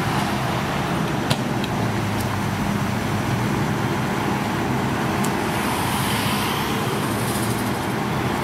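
Fire engine's diesel running steadily as a low, even hum at constant pitch, supplying the hose lines. A car passes close by near the start, and there is one sharp click about a second in.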